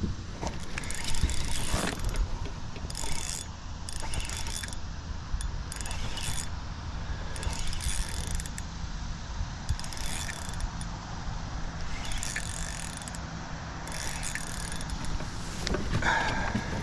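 Fishing reel being cranked in spells, its gears whirring and clicking under the load of a hooked fish.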